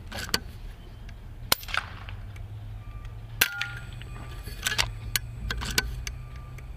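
Air rifle shot about three and a half seconds in, a sharp crack with a brief ring after it, among several lighter clicks and knocks.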